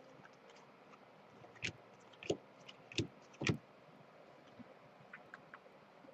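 A few short, sharp clicks and light taps at a desk, four louder ones spaced roughly half a second apart in the middle, then a few faint ticks near the end.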